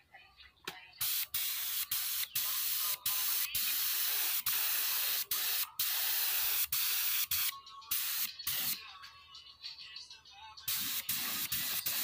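Gravity-feed spray gun spraying colour onto a wooden chair: a loud, even hiss of atomising air and finish, broken by short breaks where the trigger is let off. It starts about a second in, eases off for a while past the middle, and starts again near the end.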